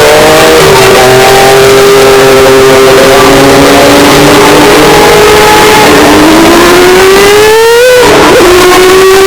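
Mazda 787B's four-rotor R26B rotary engine running at high revs with a piercing note. It holds steady, then climbs for about two seconds, drops sharply about eight seconds in, and settles back. It is recorded at full-scale loudness, overdriven.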